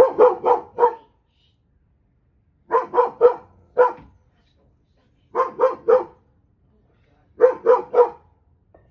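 A dog barking in quick bursts of three or four barks, four bursts about two seconds apart.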